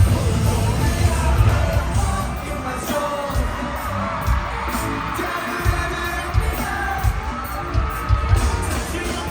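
Live K-pop music with singing, played loud over a stadium sound system, with heavy bass thumps and the crowd yelling and cheering along.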